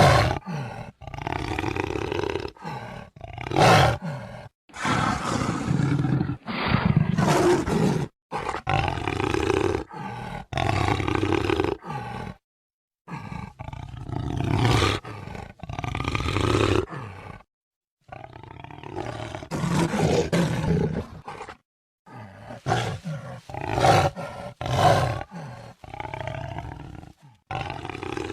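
Jaguar roaring and growling: a string of rough, loud calls about one to two seconds long, each starting and stopping abruptly, with short silent gaps between some of them.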